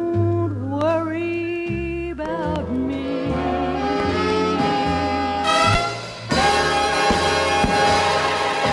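A dance-band orchestra plays an instrumental break in swing style: saxophones hold notes with vibrato, scooping up into them, over a pulsing bass. About six seconds in the brass section comes in louder.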